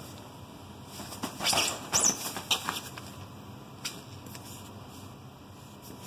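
Fabric rustling and swishing in a few quick bursts as a kitten scrambles and pounces on a loose cloth sheet, the bursts bunched between about one and three seconds in.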